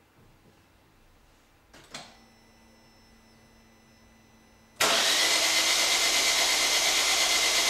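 Car starter motor cranking the engine, coming in suddenly about five seconds in and running steadily. It is spinning the engine to test an ignition coil for sparks at four spark plugs laid outside the cylinders, the coil being blamed for the car running on three cylinders. A click and a faint hum come before the cranking.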